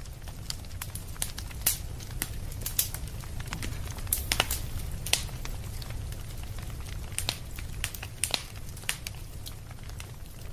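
Wood campfire crackling, with sharp irregular pops and snaps of burning logs, a few louder ones in the middle, over a low steady rumble.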